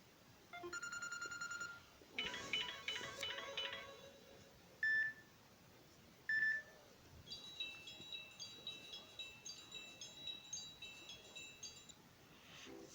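Ringtones of a Samsung Galaxy Tab 3 Lite (SM-T111) playing through its small speaker, one short snippet after another. First comes a steady electronic tone, then a brief chime-like phrase and two short beeps, then a quick melody of high notes lasting several seconds.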